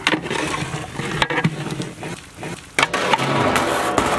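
A long metal ladle stirring a big pot of bubbling, sizzling mutton masala, with a few sharp knocks of the ladle against the metal pot.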